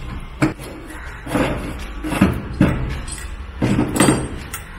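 Metal parts of a submersible borewell pump being unscrewed and handled on a wooden table: a handful of irregular knocks and clunks as the loosened delivery assembly comes off and is set down.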